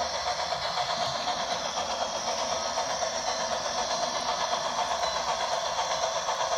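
HO scale model of Pere Marquette 1225, a 2-8-4 Berkshire steam locomotive, running along the track: a steady mechanical running sound with a fast, even pulsing.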